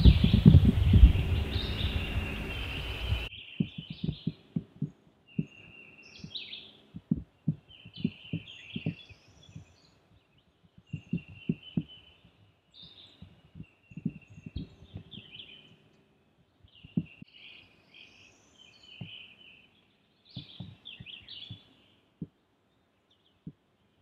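Several songbirds singing, with many soft low thumps underneath. A loud low rumble fills the first three seconds and cuts off suddenly.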